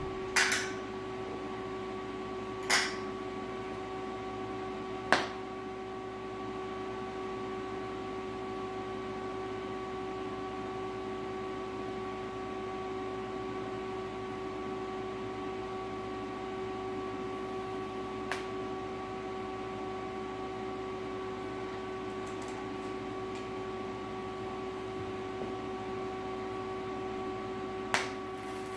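TIG welder running with a steady hum while a steel bolt is tacked and welded to a clamp, broken by sharp snaps as the arc is struck: about half a second in, near 3 s, near 5 s, a faint one midway and one near the end.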